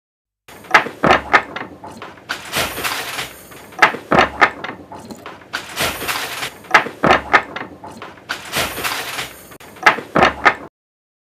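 Handloom at work: a run of sharp clacks and knocks, with a heavier thump about every three seconds.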